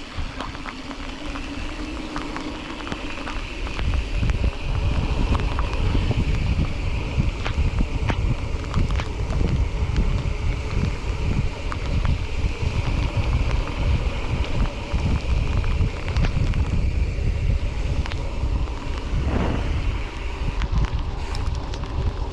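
Wind buffeting the microphone of a camera riding on a mountain bike, with frequent rattles and knocks from the bike over rough trail.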